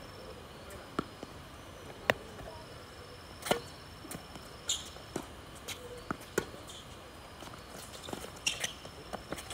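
Tennis ball on a hard court: a string of sharp pops from racket strings hitting the ball and the ball bouncing, spaced irregularly about half a second to a second apart. The loudest pop, a serve, comes about three and a half seconds in, followed by the hits and bounces of a rally.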